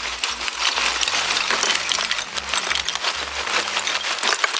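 Lumps of charcoal poured from a bag, clattering and clinking into a rusty sheet-metal stove, with many small knocks in quick succession.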